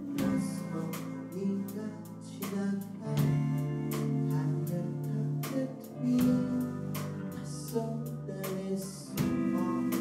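Live band music in an instrumental passage, with an acoustic guitar strummed in a steady rhythm and no lead vocal.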